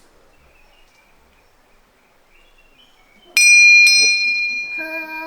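A small bell is struck twice, about half a second apart, and rings on with a clear high tone. Near the end a voice starts a long, steady sung note.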